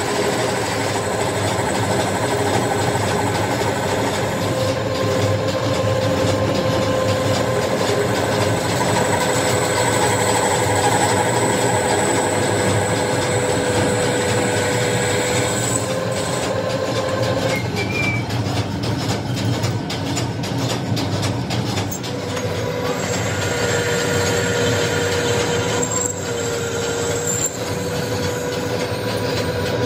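Metal lathe turning a steel tractor rear-axle half shaft, the cutting tool shaving off chips with a steady machining noise and a thin high squeal from the cut. The squeal fades for several seconds past the middle, then comes back.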